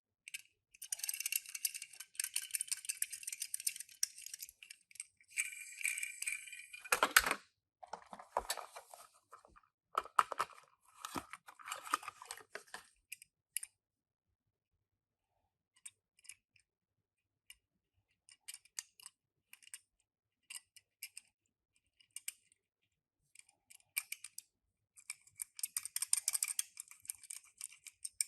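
Toy car packaging being handled and opened: crinkling and rustling in several spells, with a sharp knock about seven seconds in and scattered small clicks in between.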